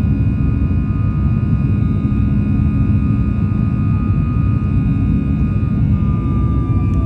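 Boeing 737 jet engines heard from inside the cabin: a loud, steady rumble with high whining tones over it. A new whine comes in near the end and slowly drops in pitch.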